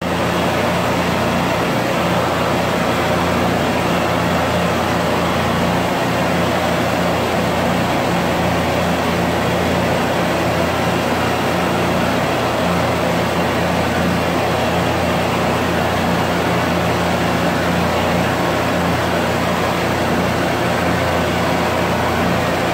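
Steady roar of a hand-held gas torch playing its flame over bronze to heat it for a hot patina, with a steady low hum underneath.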